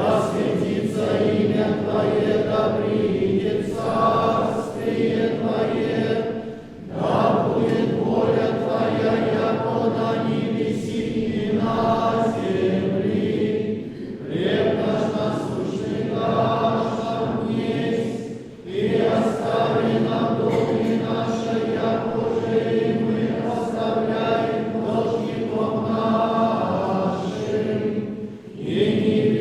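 Orthodox church choir singing a cappella, sustained chords in long phrases with brief breaks between them.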